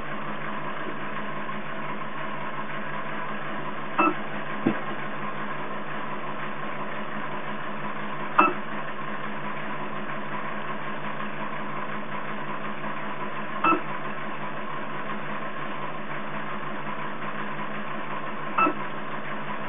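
Hanna HI902C auto titrator at work: a steady hum from its sample stirrer spinning at 1500 RPM, broken by four short pulses about every four to five seconds as the burette pump doses titrant toward the pH 8.2 end point.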